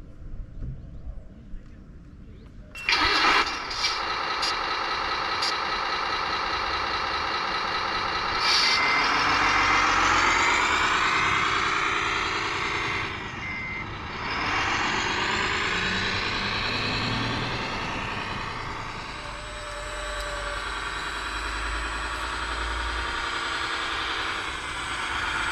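An RC model truck's sound module starting a simulated diesel engine about three seconds in, then revving up and down as the model is driven. For a few seconds mid-way a high reversing beep sounds in short pulses.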